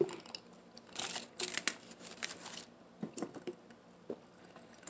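Bursts of rustling and crinkling from objects being handled, then a few light clicks and knocks.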